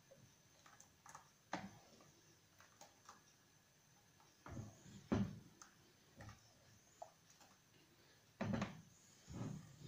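Metal ladle stirring thin crêpe batter in a plastic bowl: faint, scattered taps and swishes of the ladle against the bowl, with a louder cluster about five seconds in and again near the end.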